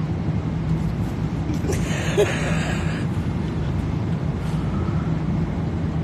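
Steady low drone of an airliner cabin, engine and air-system noise, with a brief rustle about two seconds in.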